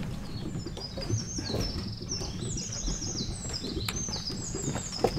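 Songbird singing a string of quick, high, slurred phrases one after another in forest.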